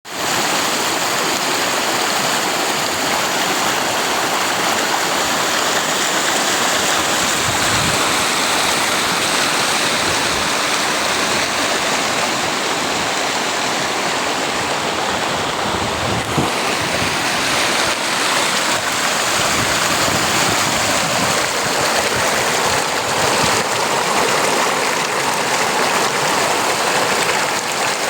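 Running water in a stream, a steady rushing flow.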